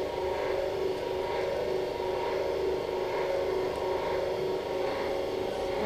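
Steady electric hum and whir from running arthroscopy equipment, holding several even tones without change.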